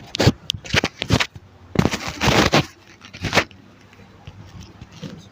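Rustling and scraping of clothing and the treatment-table cover as a patient shifts position on a chiropractic table, in several short bursts over the first three and a half seconds, the longest about two seconds in.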